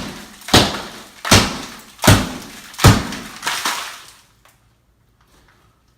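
Hammer blows knocking a wall apart during demolition: four heavy strikes about three-quarters of a second apart, each with a crunch of breaking material, then a weaker fifth, after which the blows stop about four seconds in.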